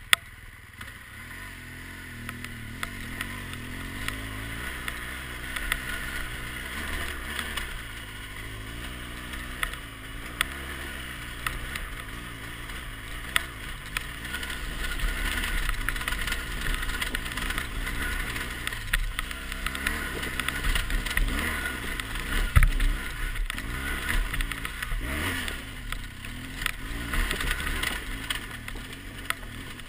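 BMW R1200GS boxer-twin engine pulling up a steep, rocky gravel climb, its note rising and falling with the throttle. Scattered clicks and knocks come from the rough ground, with one sharp knock about three quarters of the way through.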